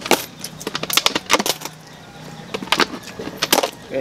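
Close-up eating noises as smoked pork ribs are chewed off the bone: irregular clusters of sharp, wet clicks and smacks.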